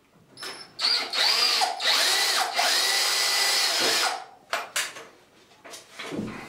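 Cordless drill-driver driving a screw through a small softwood offcut into a timber wall batten. A short burst, then about three seconds of steady driving with the motor's whine rising and falling as the screw bites, stopping about four seconds in, followed by a few light knocks.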